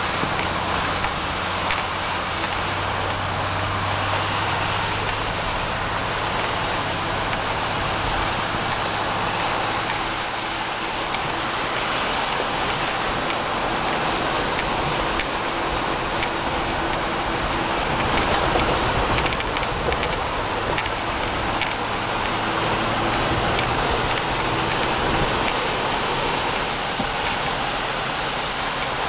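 Muddy water spraying and sloshing against the underbody and wheel arches of a 4x4 driving through a flooded dirt track, heard from inside the cab as a steady rush, with the vehicle's engine humming low underneath.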